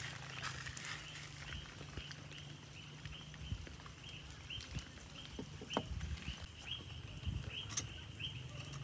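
Faint ambient animal chirping, short high chirps repeating about twice a second, with a few light metallic clicks and taps as a small backpacking stove is screwed onto a gas canister.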